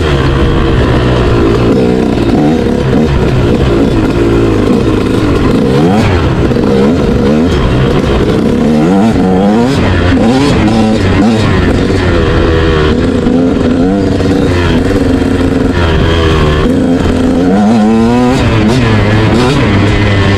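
Motorcycle engine running hard, its pitch rising and falling over and over as it revs up through the gears and drops back.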